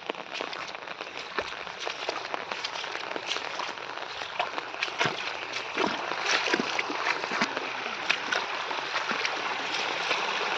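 Heavy rain falling: a steady hiss dotted with many sharp drip and splash ticks, growing slightly louder.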